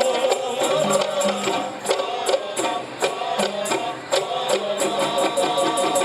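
Qasidah ensemble music in an instrumental passage: frame drums and jingling tambourine strikes in a quick, even rhythm over sustained pitched accompaniment.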